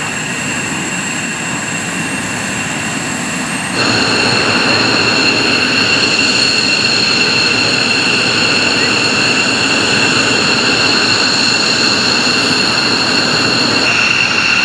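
Jet engines running on a flight line: a steady high-pitched turbine whine over a loud rushing noise. It gets abruptly louder about four seconds in.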